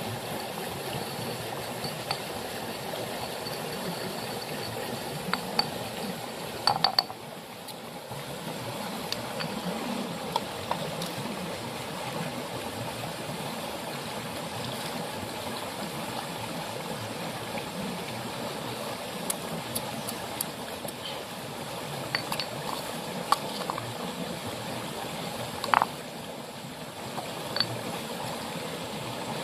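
A steady rush of shallow river water, with occasional sharp clinks and knocks of a stone pestle, stone mortar and coconut-shell bowls against stone, including a quick run of clinks about seven seconds in.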